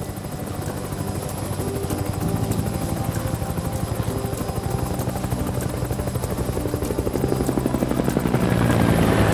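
Large twin-turbine helicopter flying overhead, its rotor blades beating in a rapid, steady chop over the engine hum, growing louder near the end.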